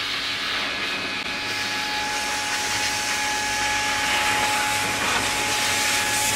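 Pet blow dryer running steadily, its hose nozzle blasting air onto a wet dog's coat: a steady rush of air with a thin, even motor whine.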